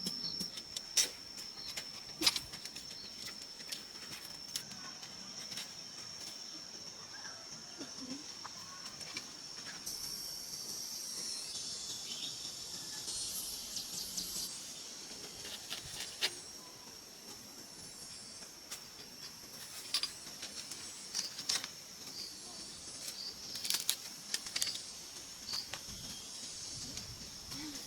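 A steady high-pitched insect drone, with rustling and scattered sharp clicks and snaps, the loudest about a second and two seconds in and again near the end.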